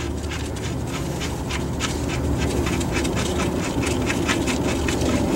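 Quick series of light metallic clicks, several a second, as the lower ball joint nut is backed off the stud. A steady low hum runs underneath.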